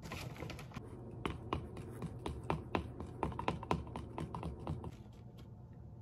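A rapid, irregular run of light, sharp clicks and taps, stopping about five seconds in.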